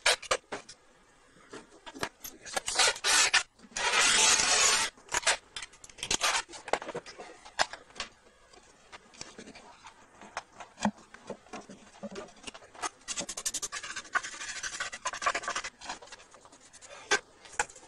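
Handling noise on a speaker cabinet: a run of sharp clicks and knocks, with a loud scrape lasting about a second about four seconds in and a longer stretch of rubbing and scraping later on.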